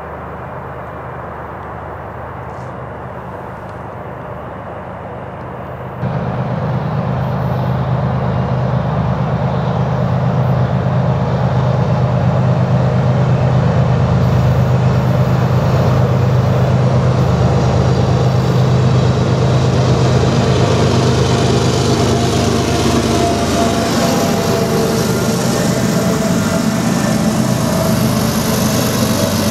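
Kansas City Southern GE ES44AC diesel locomotives running under power with a steady low engine rumble as the train approaches, growing slowly louder until the locomotives pass close near the end. The sound steps up abruptly about six seconds in.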